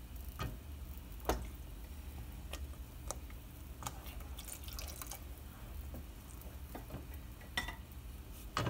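Warm milk ladled into a thickening roux-based white sauce in a stainless steel pot, dripping and sloshing, then stirred with a wooden spoon, with scattered clicks of the ladle and spoon against the pot. The milk is going in a little at a time to keep the sauce free of lumps.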